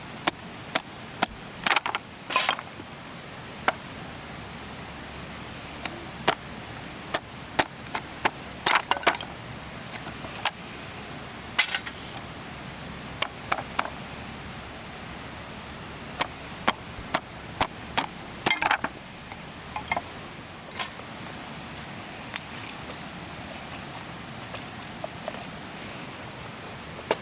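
Irregular sharp clicks and clinks, some single and some in quick clusters of two or three, over a steady background hiss.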